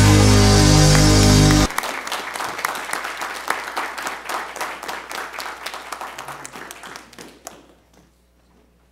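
The song's final held chord rings out and cuts off about two seconds in, followed by congregation applause that thins out and stops near the end.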